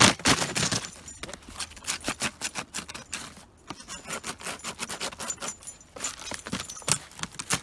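Thin shelf ice at a pond's edge cracking and breaking up under a puppy's pouncing paws: irregular runs of sharp crackles and clinks, loudest at the start and again near the end. The ice has an air space beneath it, so it gives way easily.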